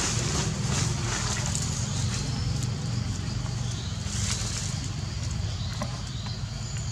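Steady low rumble and hiss of outdoor background noise, with a few faint rustles in dry leaf litter.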